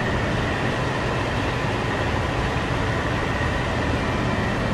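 Large drum fan running steadily: an even rushing noise with a faint high whine held at one pitch.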